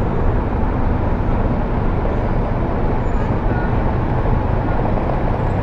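Steady outdoor background rumble, most of it low-pitched and even in loudness, like distant street traffic, with no single clear source.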